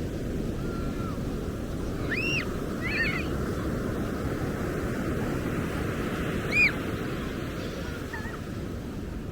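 Steady wash of breaking ocean surf on the beach. A bird calls over it a few times: short arched calls a couple of seconds in, and one more past halfway that is the loudest moment.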